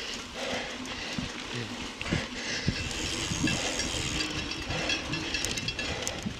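Mountain bike rolling fast over a bumpy dirt trail: steady wind rush on the microphone with tyre rumble and scattered knocks and rattles from the bike over bumps.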